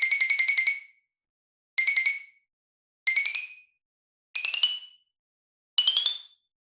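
Cartoon sound effect: a high, rapid fluttering trill of about nine pulses a second. A longer run ends about a second in, then four short bursts follow, each a step higher in pitch.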